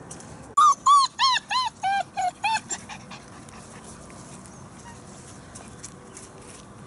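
German Shepherd puppy yelping: a quick run of about seven short, high yelps over two seconds, starting about half a second in, each rising and falling in pitch and the run stepping lower toward the end.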